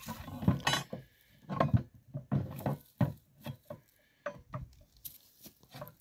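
Wooden parts of a homemade hand hay baler knocking and scraping together as they are pulled out of the baling box and refitted on the other side, in a string of irregular knocks.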